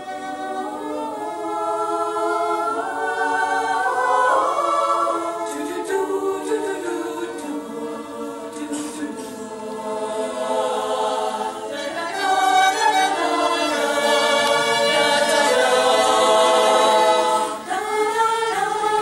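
Women's choir singing in several-part harmony with long held chords. The voices come in together right at the start and break off briefly near the end before going on.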